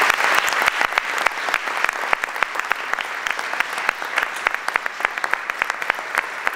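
Audience applauding: a dense patter of many hands clapping, fullest at the start and thinning slightly over the next few seconds.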